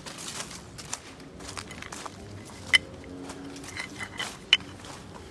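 Footsteps through fallen leaves, with irregular rustling and two sharp, short high clicks a little under two seconds apart.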